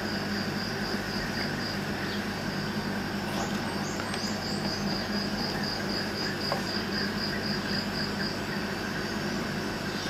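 A cricket chirping in an even pulsing trill of about four beats a second, pausing briefly in the middle, over a steady low hum. A few faint light clicks come from the small metal bench vise being handled and tightened.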